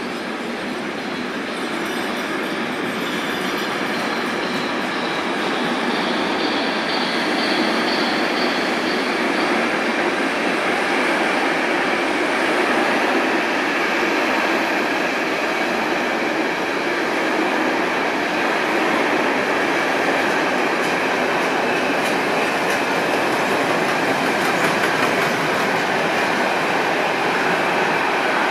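Model railway train, a steam locomotive hauling a long rake of cement silo wagons, rolling past on the track with a steady rattle of wheels on rail. It builds over the first several seconds and then holds steady.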